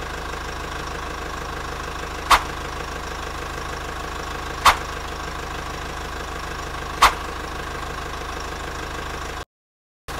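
Excavator engine idling sound effect: a steady mechanical drone with a short sharp click about every two and a half seconds. It cuts out briefly near the end.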